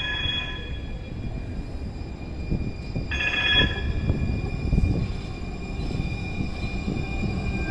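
Two-car Siemens S200 LRV4 light-rail train running through a curve at an intersection, with a low rumble and knocks from the wheels on the track and a faint steady high whine. Short high-pitched squeals come twice, at the start and about three seconds in.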